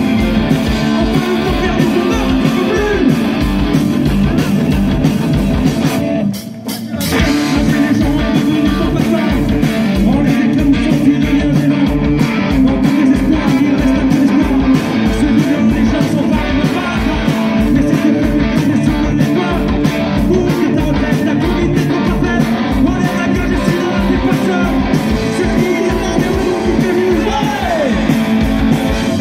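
Live rock band playing: electric guitars, bass, keyboard and a drum kit on a steady beat, with sung vocals. The band cuts out for a brief break about six seconds in, then comes straight back in.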